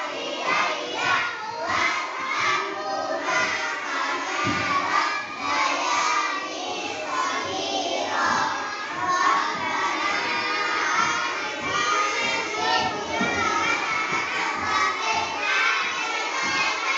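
A classroom of young children reciting a prayer aloud together, many small voices chanting in unison: the prayer for parents.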